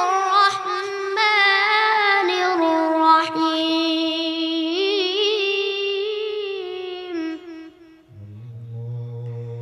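A young boy reciting the Quran in melodic tilawat style, holding one long ornamented note with a wavering pitch that slowly drifts lower; it ends about eight seconds in. A lower, steady hum follows.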